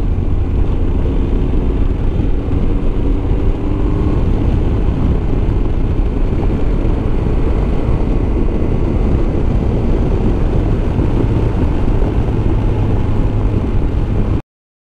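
Motorcycle running steadily at road speed, its engine under a heavy rush of wind on the camera microphone; it cuts off suddenly near the end.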